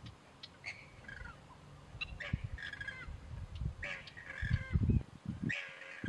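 Shorebirds calling: short calls every second or so, several of them sliding down in pitch. Dull low thumps come in the last second and a half and are the loudest sounds.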